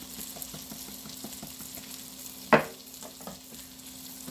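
Chicken cutlets frying in oil with a steady sizzle, under light clicks of a spoon stirring sauce in a bowl. One sharp clink comes about two and a half seconds in.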